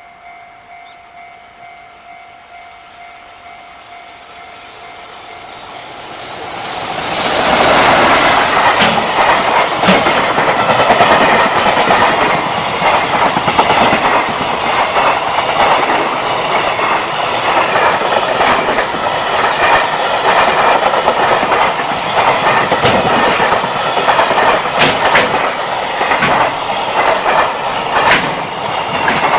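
Level-crossing alarm bell ringing its repeating ding, then a freight train coming up and passing close by, loud from about seven seconds in, with a steady rumble and the clatter of its wheels over the rail joints. The crossing bell is drowned out once the train is alongside.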